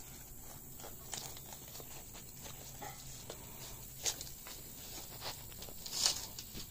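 Sulcata tortoise biting and tearing at crisp romaine lettuce, a scatter of short crunches, the loudest about four and six seconds in, mixed with rustling of dry leaves and straw as it moves.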